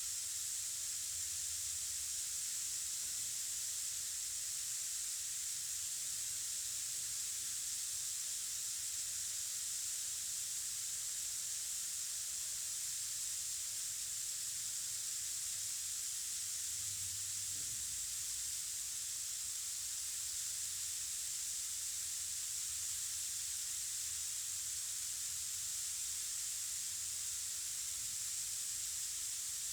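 Large handmade rainstick with star-shaped beads, turned over so the beads trickle down through it: a steady, soft, rain-like hiss.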